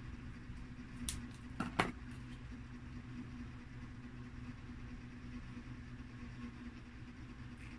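Scissors snipping open a plastic sauce sachet, a sharp click about a second in, then a louder clack as the scissors are set down on a cardboard pizza box, over a steady low hum.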